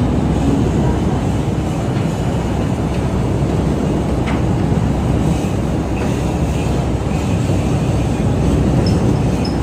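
Steady low rumble of a harbour ferry's engines, heard from inside the passenger cabin as the ferry docks. Near the end a high, repeating electronic beeping starts.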